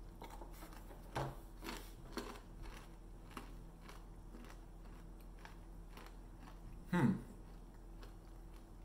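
Chewing a mouthful of extra-crunchy dark-chocolate-coated roasted chickpeas: a few crisp crunches in the first two or three seconds, then quieter chewing with small clicks. The eater makes a short, low voice sound about seven seconds in.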